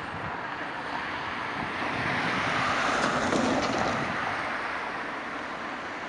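A car passing by on the street, its noise swelling to a peak about three seconds in and then fading.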